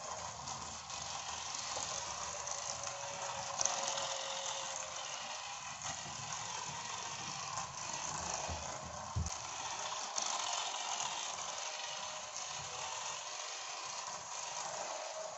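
Small battery-powered toy motors and plastic gears whirring steadily, with a few sharp clicks.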